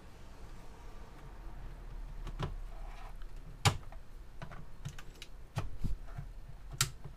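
Irregular plastic clicks and knocks, about nine of them from about two seconds in, as the 3D printer's hand-held touchscreen controller and its cable are handled.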